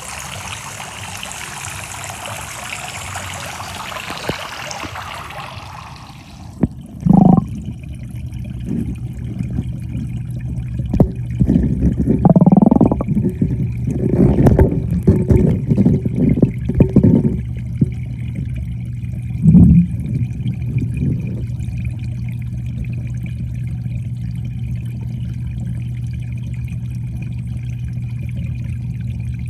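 Water pattering down from a perforated pipe onto a koi pond's surface; about six seconds in the sound turns muffled as the microphone goes under the water. Underwater there is a steady low hum with several dull knocks and bubbling noises in the middle stretch.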